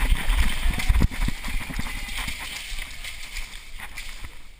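Running footsteps on a hard warehouse floor, with gear jostling: irregular heavy thuds, strongest in the first second or so, then easing off.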